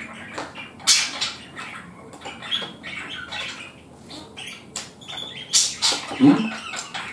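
Close-up mouth sounds of someone chewing a spoonful of vla (Dutch custard) dessert with fruit and crumbled bitterkoekjes (almond macaroons). It is wet munching with irregular crunchy clicks.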